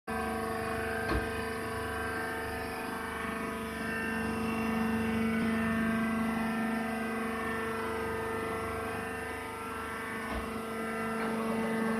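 Hydraulic baler's electric motor and pump running with a steady droning hum, holding one pitch. A light knock about a second in and a soft thump near the end, from the baling wires against the steel chamber.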